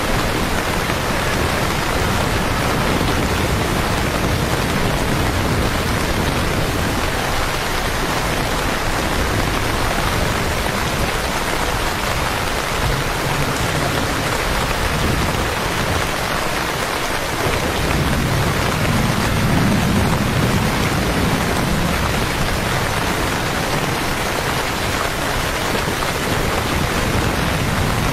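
Steady rain falling on wet stone pavement, an even hiss with no break. A low rumble swells and fades about two-thirds of the way through.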